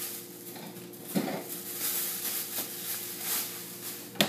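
Groceries being handled and put away: rustling of bags and packaging, with a sharp knock just before the end.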